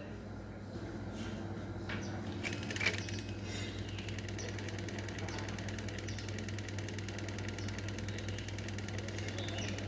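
Small electric motor of a mini fan running with a steady hum. A few sharp clicks come about two to three seconds in, and a fast, fine rattle joins from about four seconds.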